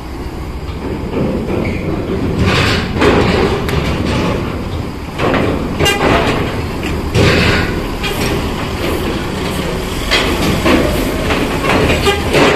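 Big buses running with a steady low engine rumble, with a string of loud, irregular clanks about a second apart as heavy wheels go over metal joints.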